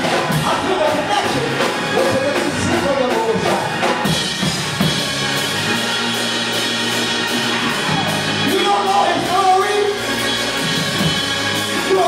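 Church keyboard playing sustained chords with light drum-kit accents, under a preacher's amplified voice delivered in a half-sung, chanting cadence.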